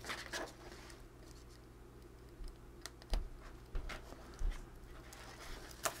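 Faint, irregular small clicks and taps of fingers and a pen handling jumper wires and plastic connectors on an Arduino board, about eight ticks scattered over a few seconds.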